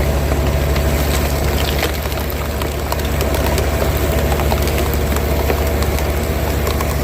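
Vermeer mini skid steer's engine running steadily while working a Black Splitter S2 800 hydraulic cone log splitter, with scattered short sharp cracks and ticks over it.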